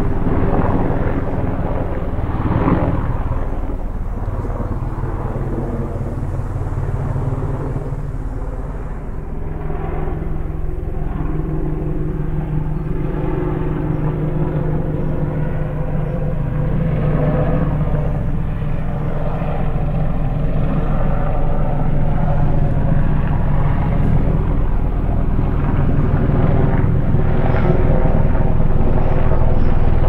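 Steady drone of an aircraft in flight: engine and rotor noise made of several even tones. It dips briefly and then grows slightly louder toward the end.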